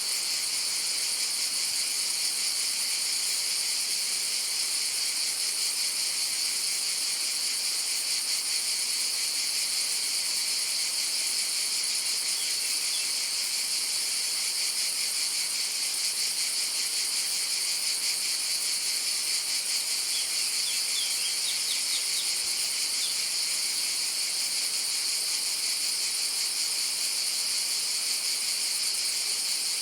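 Chorus of cicadas buzzing steadily in a dense high-pitched drone, with a few brief faint bird chirps.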